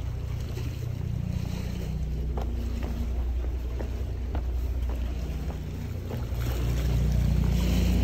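Hiker's footsteps scuffing and tapping on rock slabs, a few sharp clicks in the middle, over a steady low rumble that grows louder near the end.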